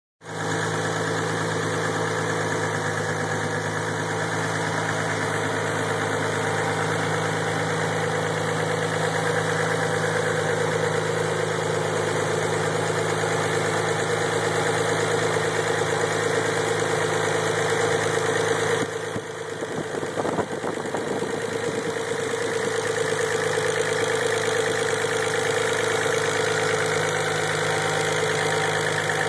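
Engine idling steadily after start-up, free of the abnormal noise it had made: the sound the owner wanted to confirm is gone. It goes briefly quieter and uneven about two-thirds of the way in, then settles back.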